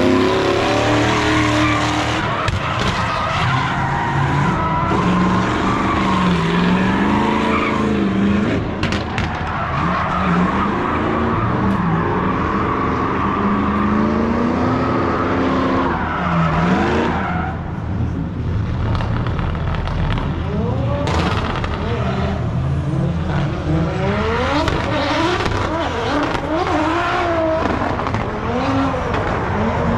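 Drift cars sliding round the track: engines revving up and down and tyres squealing.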